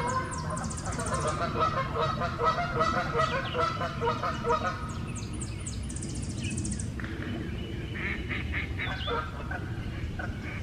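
Several geese honking in a rapid, overlapping series for about five seconds, then fewer and quieter honks: the flock chasing another goose off.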